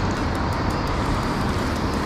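Steady rumbling, rushing noise with a hiss above it, unchanging throughout.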